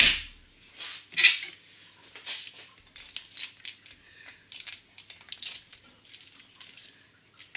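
A metal baking tray clatters down twice in the first second or so, then a metal slotted spatula scrapes and clinks against the tray and its baking parchment in many small knocks as the baked parcels are worked loose to be turned over.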